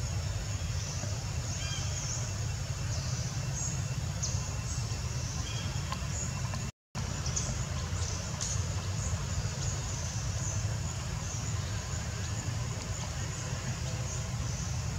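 Steady low outdoor rumble with faint high chirps over it; the sound cuts out completely for a split second about seven seconds in.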